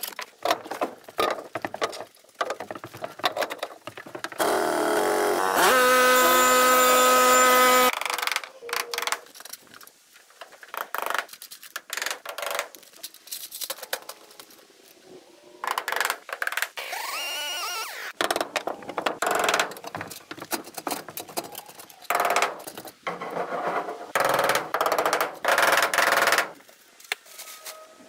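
Timber-frame building work: a string of knocks and clatters from hand tools and lumber. A small motor whines steadily for about two seconds, a few seconds in.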